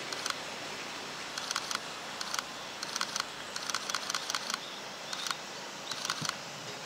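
Camera shutters firing in rapid bursts, runs of quick clicks coming again and again every second or so.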